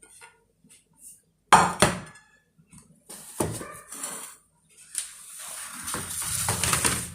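Glass kitchenware being handled and set down: a sharp knock about a second and a half in, another about two seconds later, then a longer scraping rustle near the end.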